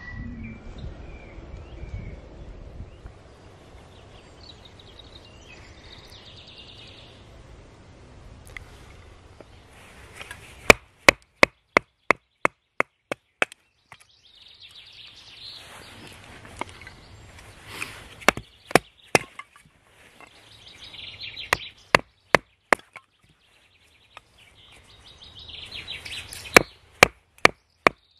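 A knife splitting small sticks of kindling, wood on wood. Sharp knocks come in four quick groups of a few a second, starting about ten seconds in, with the crackle of splitting wood between them.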